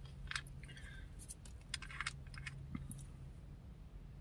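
Quiet mouth and handling noises: a few soft, scattered clicks and smacks at irregular intervals, over a low steady hum.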